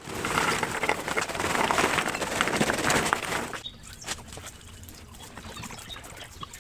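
Charcoal briquettes poured from a paper bag, clattering and tumbling into a brick trough for about three and a half seconds. Then much quieter: lighter fluid squirted from a bottle and splashing over the coals.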